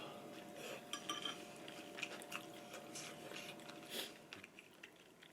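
Cutlery clinking against bowls and dishes during a meal, with light chewing, and one louder clink about four seconds in. A faint steady hum underneath stops shortly after that.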